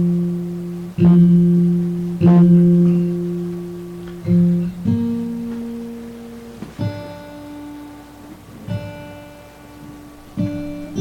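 A guitar plucked note by note. About eight notes or chords are struck one after another, each left to ring out and fade. The first three repeat the same low note.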